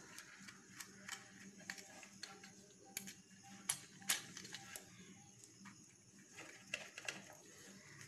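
Faint, irregular clicks and scrapes of a small screwdriver turning brass terminal screws on a plastic switch-socket board, as a wire is clamped into a terminal.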